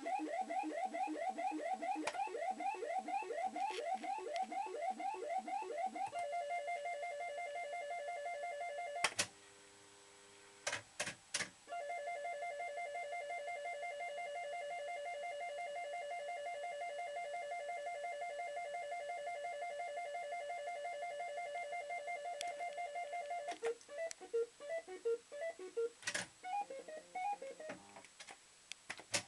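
Maygay Moon Bug fruit machine's electronic sound effects. A fast run of rising beeps gives way to a steady pulsing two-note tone, with a few sharp clicks at about nine to eleven seconds as the reels stop. Another long pulsing tone follows, then a run of short bleeps and clicks near the end.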